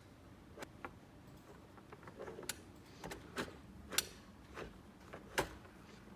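Small plastic toy pieces being handled: irregular sharp clicks and taps, about eight of them, with a soft rustle about two seconds in.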